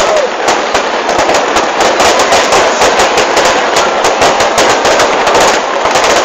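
Fireworks display: a dense, unbroken barrage of rapid bangs and crackling from many shells bursting at once, loud throughout.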